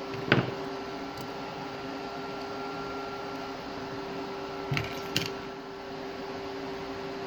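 Steady hum of running bench equipment, like a fan, with three sharp clicks and taps of handling: one just after the start, then two about half a second apart near the middle.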